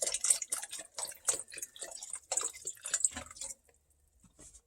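Chicken broth being poured into a saucepan of chili, splashing and dripping, stopping abruptly about three and a half seconds in.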